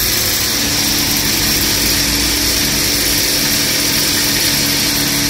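A loud, steady machine noise nearby: a strong hiss over a low, even hum.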